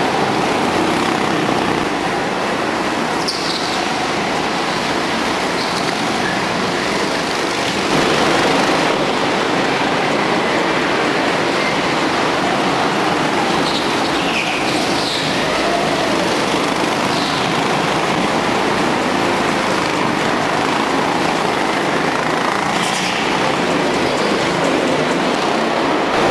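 Several go-kart engines running together as karts race round an indoor track, a continuous engine noise that fills the hall. Short high squeals cut through it now and then, a few seconds apart.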